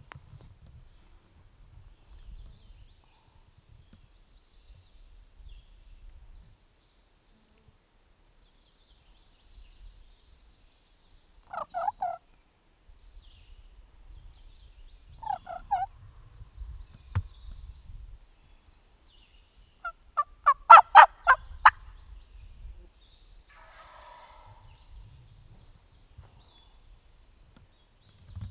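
Wild turkeys gobbling close by: two short calls near the middle, then a loud, rapid rattling gobble about three-quarters through, followed by a fainter gobble. Faint songbird chirps sound behind them.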